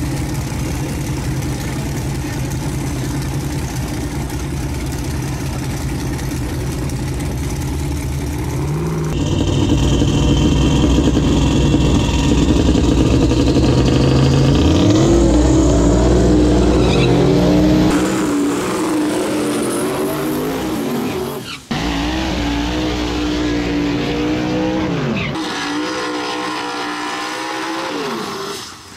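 Twin-turbo Chevy Nova drag car's engine running, then revving up hard with a rising pitch about nine seconds in. The sound changes abruptly several times, ending on a Mustang drag car's engine revving during a burnout.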